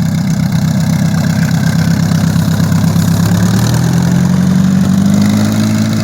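Piston engine of a Zenith light aircraft running steadily, speeding up slightly about halfway through. It is an engine that has a miss, which the owner's friend puts down to weak valve springs needing a valve job.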